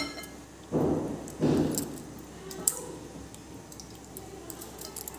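Boiled raw mango seeds squeezed and rubbed by hand in a glass bowl of mango pulp: two wet squelches about a second in, then lighter splashes, drips and small clicks. A sharp clink right at the start.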